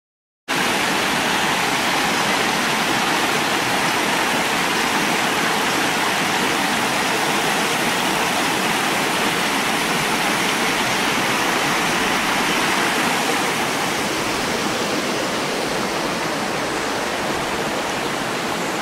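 Steady rushing of creek water tumbling over rocks and small cascades. It starts abruptly about half a second in and eases slightly in the last few seconds.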